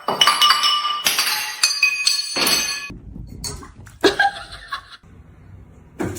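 Hard objects clattering and clinking, like glassware knocked over, with ringing tones through the first three seconds, then a few shorter knocks.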